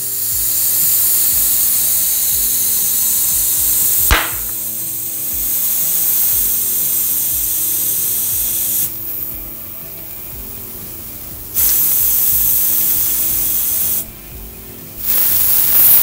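Compressed air hissing from a compressor's inflator into a tubeless mountain-bike tire, in three long bursts with short breaks between. About four seconds in there is a single sharp snap, the tire bead popping into place on the rim.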